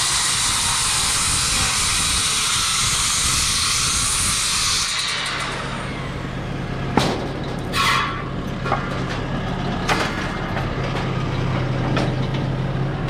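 Skilsaw worm-drive circular saw cutting through a rough-sawn timber for about five seconds, then spinning down. After that a steady low hum from the lift's engine, with a few knocks as the wooden offcut is handled and dropped into the basket.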